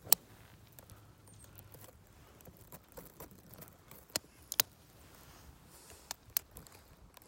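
A few scattered sharp clicks and taps over a quiet background. The loudest comes right at the start, with a close pair about four seconds in and another pair near the end.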